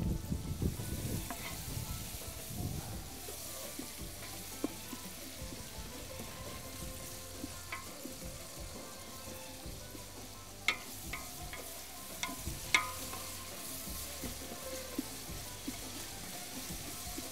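Onions frying in oil in a large metal pot, sizzling steadily while a wooden spoon stirs them. There are a few sharp knocks of the spoon against the pot a little past the middle.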